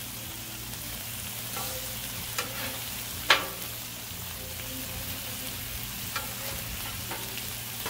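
Sea bass fillets sizzling in oil on a Blackstone flat-top griddle, a steady frying hiss. A metal spatula clicks and scrapes on the steel cooktop a few times as the fillets are turned, the sharpest clack a little over three seconds in.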